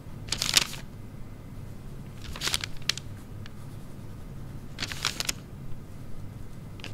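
Paper rustling three times, about two and a half seconds apart, like book pages being turned, with a small click just after the second, over a steady low hum.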